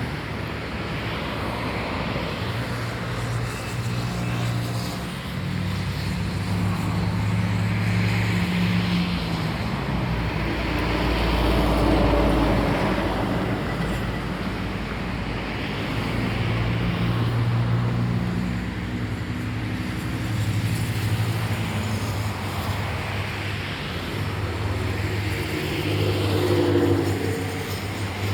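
Road traffic: cars and other motor vehicles passing one after another, their engines and tyres rising and fading over a steady background.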